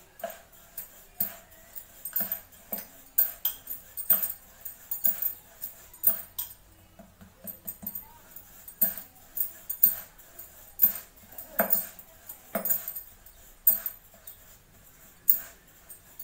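Wooden rolling pin knocking and rolling on a wooden board as a rice-flour dough round is rolled out, with glass bangles clinking at the wrists: irregular short knocks and sharp ticks, one to three a second.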